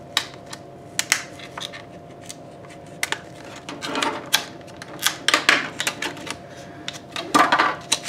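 Clear plastic clamshell packaging of a RAM stick being handled and pried open: a run of sharp, separate plastic clicks and snaps, with a few short rustling scrapes of plastic on plastic in between.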